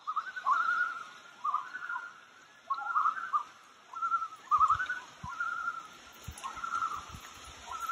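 Common loon calling: a series of short, quavering calls repeated about once a second.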